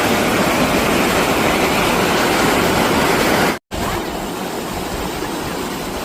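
Mountain stream rushing over rocks: a loud, steady rush of water. A brief dropout cuts it about three and a half seconds in, and the rush resumes slightly quieter.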